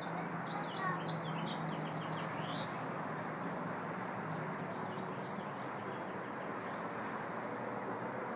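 Birds chirping: a quick run of short, high chirps in the first couple of seconds, then only faint chirps, over a steady background hum.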